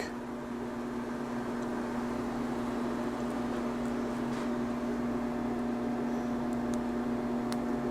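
Steady machine hum with an even pitch, with a few faint small clicks over it.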